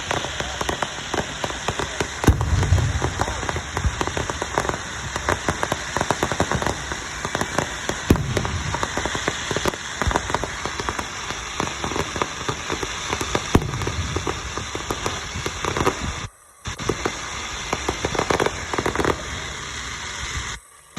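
Fireworks going off: a dense, continuous crackling and popping, with a few louder booms about 2, 8 and 14 seconds in.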